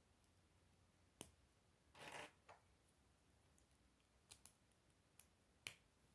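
Plastic K'nex rods and connectors being handled and snapped together: a few faint sharp clicks, with a brief rustle of pieces about two seconds in.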